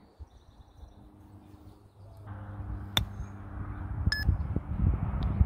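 A single sharp click about three seconds in: a 60-degree Callaway MD4 wedge striking a Callaway Chromesoft X golf ball on a pitch shot that the golfer says he caught a little too much of, so it flew. About a second later there is a short electronic beep, and wind rumbles on the microphone, growing toward the end.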